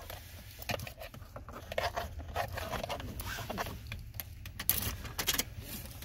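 Keys jangling and scraping, with scattered small clicks, as a key is put into the ignition.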